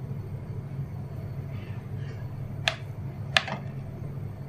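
Two short, light clicks about two-thirds of a second apart, from a plastic spoon knocking as coconut-jaggery filling is spooned onto a rice-flour dough disc, over a low steady hum.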